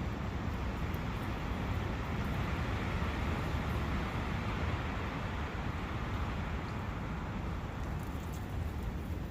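Steady rushing of a brook in a forest, with a low rumble underneath.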